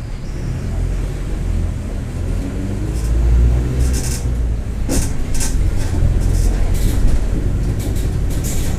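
Mercedes-Benz OF-1721 city bus under way, its four-cylinder diesel rumbling and growing louder about three seconds in, with the differential roaring. Short bursts of higher-pitched noise come through in the second half.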